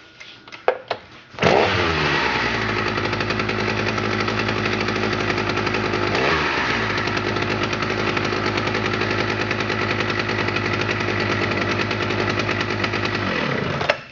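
1977 Partner P55 two-stroke chainsaw engine. A few sharp clicks are followed by the engine starting about a second and a half in. It runs steadily with a brief dip in pitch midway, then shuts off near the end, its pitch falling as it stops.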